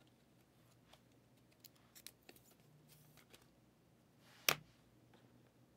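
Faint clicks and plastic scrapes of a sleeved trading card being handled and slid into a rigid plastic top loader, with one sharper click about four and a half seconds in.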